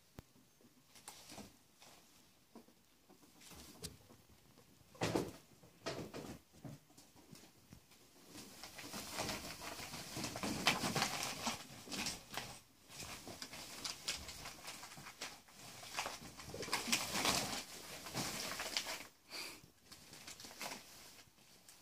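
Ferrets scrabbling and running through a clear ribbed plastic tunnel on carpet: claws scratching and the flexible plastic rustling and crinkling in irregular bursts, loudest in a few spells of busier play.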